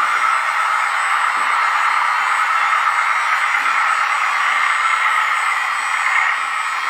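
Steady, even hissing whir of a radio-controlled hydraulic forklift's electric hydraulic pump and drive motor running as it carries a raised pallet, holding level with no strokes or changes.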